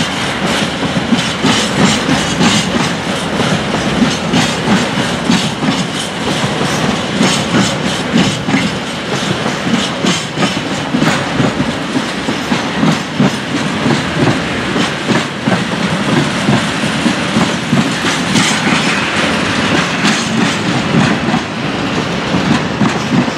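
Freight train of tank wagons rolling past, wheels clattering over the rail joints with a steady rumble underneath.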